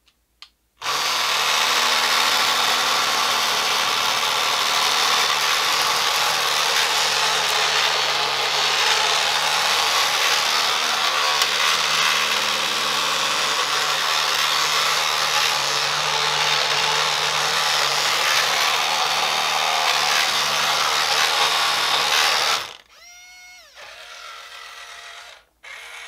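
Double E 1:20-scale RC road roller running its drum vibration function: a loud, steady, drill-like buzz that starts about a second in and cuts off suddenly after about 22 seconds. A quieter whirring sound follows near the end.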